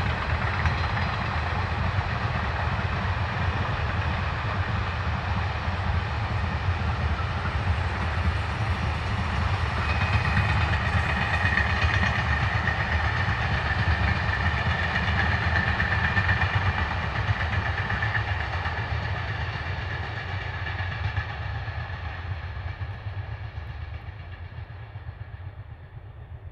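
Block freight train of bulk hopper wagons rolling past: a steady loud rumble and rail noise, with a thin high tone, like wheel squeal, standing out around the middle. It fades away near the end as the train draws off.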